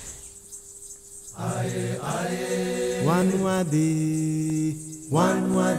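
Background music: a chanting voice holds long notes that glide from one pitch to the next, coming in about one and a half seconds in after a faint start.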